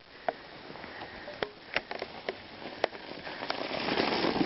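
Bicycle ridden through snow toward and past the microphone: scattered sharp clicks, then a rising noise of the tyres and rider that gets loudest as the bike passes close near the end.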